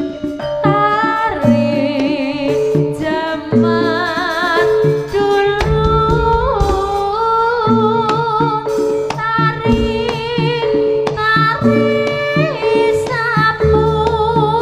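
Javanese campursari music for jaranan: a female singer's voice, wavering with vibrato, over sustained instrument tones and frequent sharp percussion strikes.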